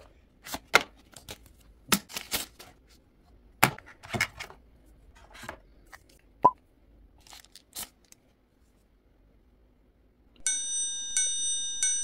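Smartphone packaging being handled: scattered clicks, taps and rustles of cardboard and plastic as the box is opened and the charger and cable are lifted out. About ten seconds in, a bright ringing tone made of several pitches begins and is struck again several times.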